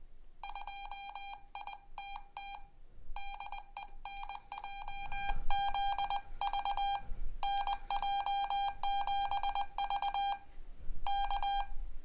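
Morse code (CW) practice tone: a buzzy, steady-pitched beep keyed on and off in dots and dashes at about 20 words per minute. It spells out a call, 'W2ITT DE NJ7V', with short pauses between words.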